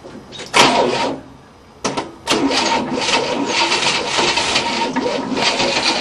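Starter motor cranking the 1967 Cadillac's V8, a steady whirring with a whine from about two seconds in, after a short burst about half a second in; the engine does not fire.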